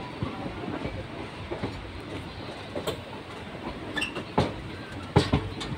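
Passenger train running slowly: a steady rumble with irregular sharp knocks as its wheels pass over rail joints and points.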